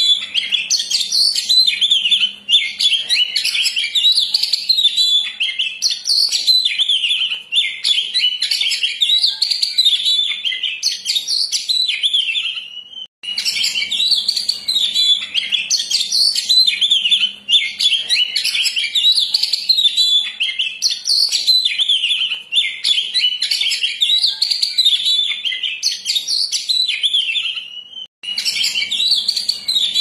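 Oriental magpie-robin (kacer) singing a fast, continuous, varied song of whistles and chirps. It breaks off briefly about 13 seconds in and again near the end, where the looped recording starts over.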